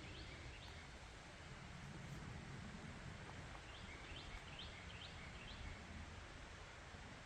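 A small songbird singing faintly: a quick series of short, rising chirps, several a second, over a steady outdoor hiss.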